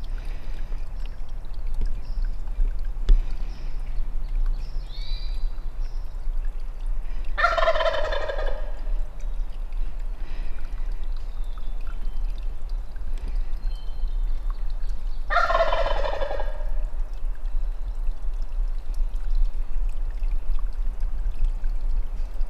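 Wild turkey gobbler gobbling twice, about eight seconds apart, each gobble a loud rattling call of a second or so. Faint songbird chirps come early, over a steady low rumble.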